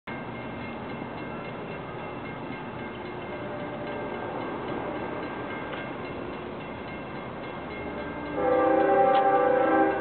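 LIRR DE30AC diesel locomotive approaching with a steady rumble, then sounding its horn in one loud blast of several notes at once, about eight seconds in, lasting about a second and a half.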